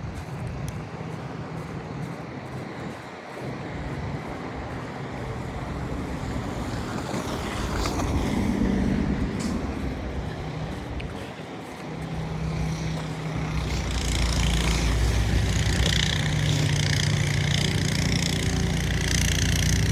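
Motor vehicle engine running close by, its steady low hum growing much louder about two-thirds of the way in.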